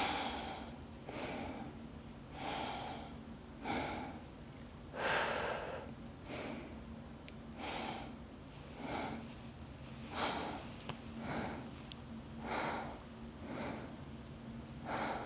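A woman breathing slowly and audibly through the nose while holding a yoga pose: about a dozen evenly spaced breaths in and out, roughly one every second and a bit. A faint steady low hum runs underneath.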